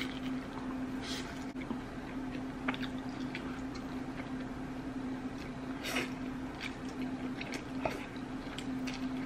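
Close-up eating sounds: a person chewing and biting food, with scattered small wet smacks and clicks over a steady low electrical hum.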